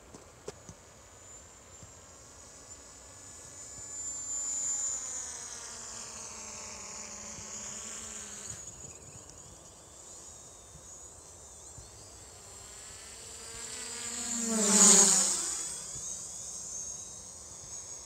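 DJI Mavic Pro quadcopter's propellers buzzing as it flies past fast and low, swelling once briefly about four seconds in and much louder near the end, its pitch dropping as it goes by.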